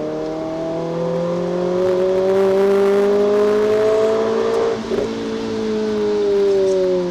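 Renault Clio RS 200's four-cylinder engine under acceleration, its note climbing steadily for about four and a half seconds, then a brief break, after which the revs fall away.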